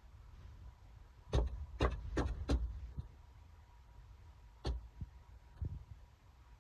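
Slippers slapping against a hard floor as footsteps: four quick steps about a second in, then a louder single step past the middle and a couple of fainter taps after it.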